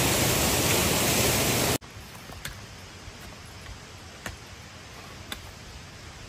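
Spring water rushing over rocks, cut off abruptly about two seconds in. Then hand hoes chop into earth and stones, with sharp separate strikes about once a second.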